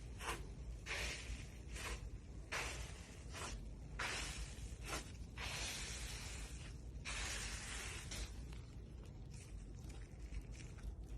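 Close-up crackling and crunching in a series of hissing bursts, some brief and some over a second long, as a crunchy material is pressed and worked.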